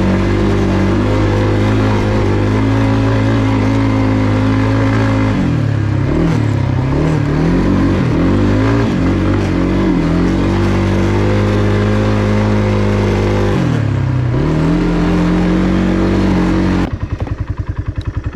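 Kawasaki Brute Force 300 ATV's single-cylinder four-stroke engine running at steady high revs under load, with the revs dipping and picking back up several times in the middle and once more later. About a second and a half before the end it drops to a pulsing idle.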